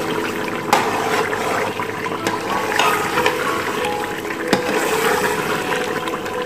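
Thick mutton curry sizzling in an aluminium pot while a metal ladle stirs and scrapes through it, with a few sharp knocks of the ladle against the pot. Its water has cooked off and it is frying in its own fat, starting to stick to the bottom.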